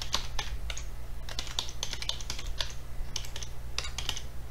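Typing on a computer keyboard: irregular runs of keystroke clicks over a low steady hum.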